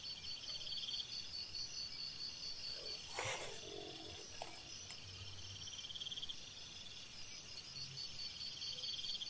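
Night insects chirping steadily in fast, high-pitched pulses, with a short burst of noise about three seconds in.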